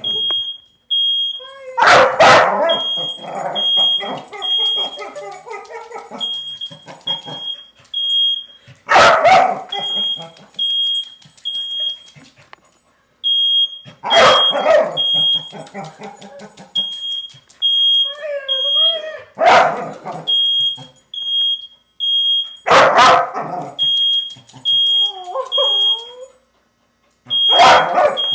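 A smoke alarm sounds high-pitched beeps in repeating groups of three while a dog barks loudly every few seconds. Between barks the dog gives high wavering cries.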